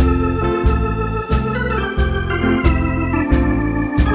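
Instrumental background music: sustained organ-style keyboard chords changing every second or so over a steady beat of about three beats every two seconds.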